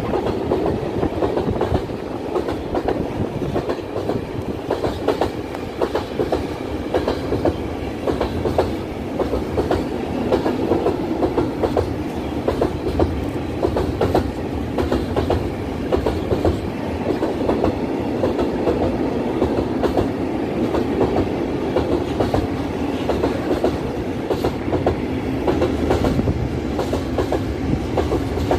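Freight train of tank wagons rolling past: a continuous rumble with a rapid, irregular run of wheel clicks and knocks on the track.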